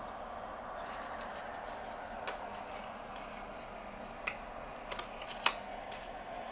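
Nicolet Elite 200 fetal Doppler with its 3 MHz obstetric probe, its speaker giving a steady static hiss, with a few sharp clicks scattered through it, the loudest about five and a half seconds in.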